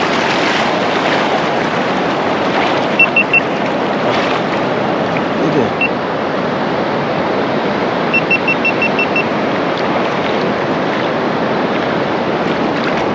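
Surf washing on the beach with wind buffeting the microphone. Short high beeps cut through: three quick ones about three seconds in, a single one near six seconds, and a run of seven around eight seconds.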